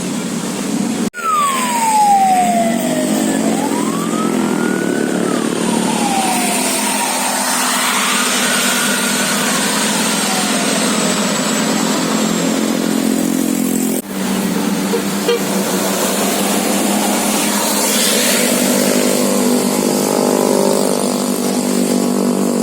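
Bus engines running steadily while a siren-type horn wails in slow falling and rising glides over the first several seconds. The sound drops out briefly twice, about a second in and again past the middle.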